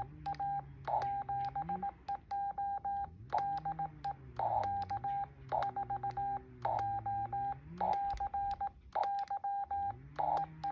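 Amateur radio Morse code (CW): a steady tone of about 800 Hz keyed on and off in rapid dots and dashes, with a sharp click at each element, and brief bursts of narrow filtered receiver hiss in a few of the gaps.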